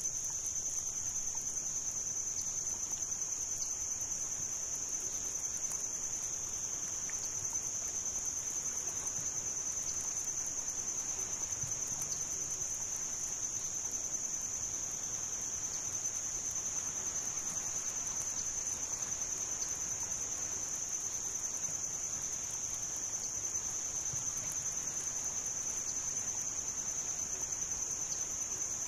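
Insect chorus: a continuous high-pitched trill that holds steady without a break.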